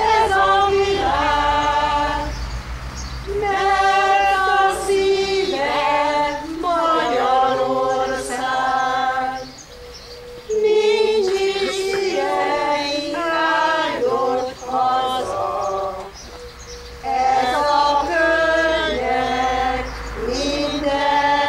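A small folk choir of mostly women's voices singing a Hungarian song unaccompanied, in long held phrases with two short breaks between them.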